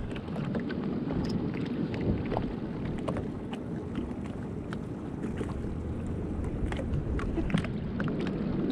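Small waves lapping and slapping irregularly against the hull of a small boat on choppy water, over a steady low rush of wind on the microphone.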